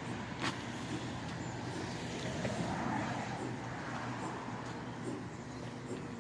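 A vehicle passing, swelling and fading around the middle, over a steady low machine hum, with a single sharp click about half a second in.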